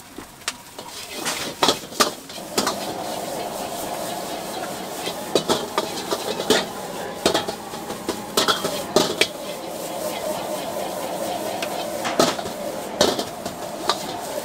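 Metal ladle clanking and scraping against a wok as fried rice is stir-fried, with sharp irregular clacks over a steady sizzle that grows in about two seconds in.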